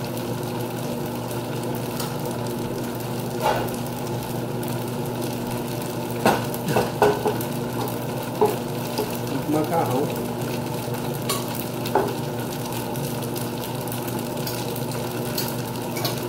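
Steady sizzling and frying hiss from the stove with a low hum under it. A black plastic pasta server knocks and scrapes against the pots several times as spaghetti is lifted out, most sharply about six to seven seconds in.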